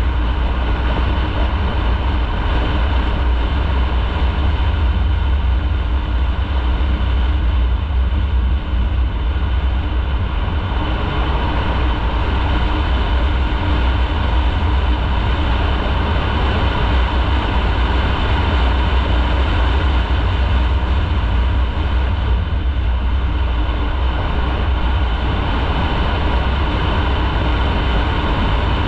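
Motorcycle riding along at a steady pace: the engine running under a loud, constant low rumble of wind on the microphone.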